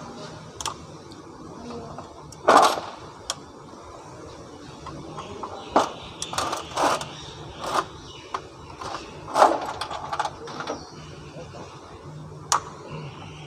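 Small metal parts and hand tools clicking, clinking and rattling against an automatic transmission valve body as it is taken apart: a scattered series of sharp clicks and short rattles, the loudest about two and a half seconds in and a cluster in the middle, over a low steady hum.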